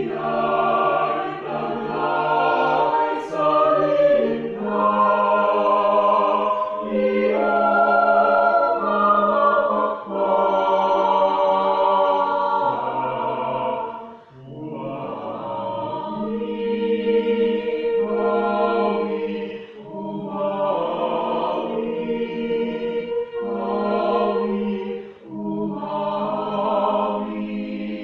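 Choir rehearsing a hymn, several voice parts singing in harmony on long held notes. The phrases break off briefly about halfway through and twice more later on, where the singers take a breath.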